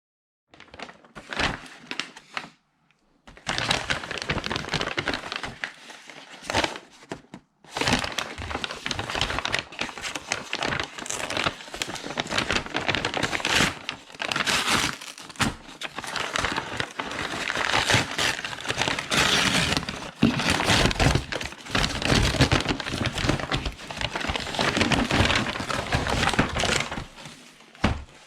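Packaging being unwrapped and handled by hand: continuous crinkling and crackling with many sharp clicks and knocks, broken by brief pauses near three seconds and about seven seconds in.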